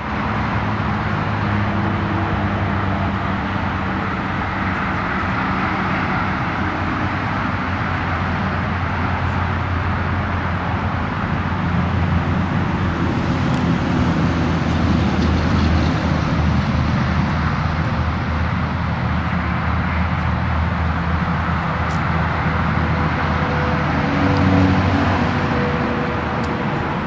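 A steady engine drone with a low hum, swelling a little in the middle.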